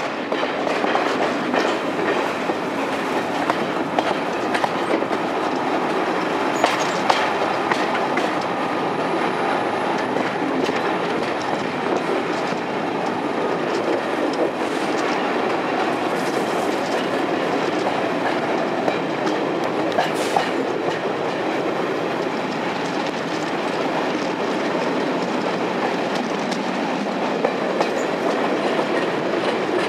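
Train running on the rails: a steady rail rumble with scattered clicks of wheels over rail joints.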